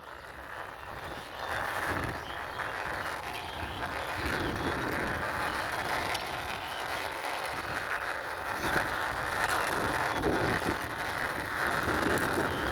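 Plastic toy car pushed along a hard surface by hand, its wheels making a continuous gritty rolling noise that builds over the first couple of seconds and then holds fairly steady.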